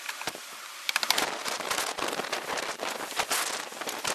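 Rapid, irregular clicking and crackling as a circuit breaker is handled and pushed onto the bus stabs of a de-energised service panel, starting about a second in.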